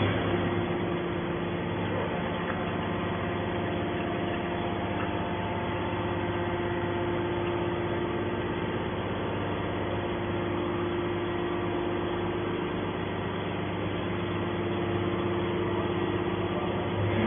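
Horizontal hydraulic scrap-metal baler running with a steady mechanical hum that holds a few constant tones.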